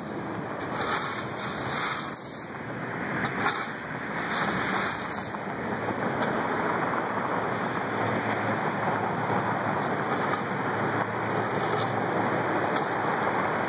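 Steady rushing wind noise on the microphone.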